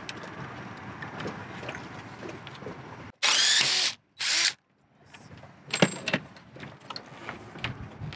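Scraping as a small blade chips out a wooden plug over a screw. Then come two short bursts of a cordless drill-driver backing the screw out, and a few sharp knocks.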